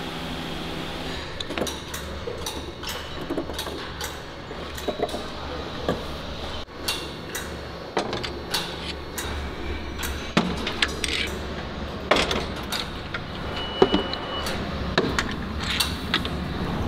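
Irregular metallic clinks and knocks as steel rock drill heads are handled, over a steady low machinery hum.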